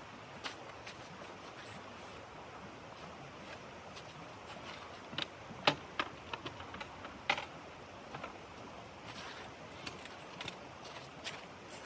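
Wood fire crackling in a wood stove: irregular sharp pops and snaps over a steady background hiss, the loudest pops a little past the middle.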